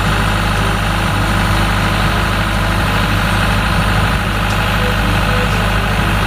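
Engine of a Tadano aerial work platform (skylift) truck idling steadily.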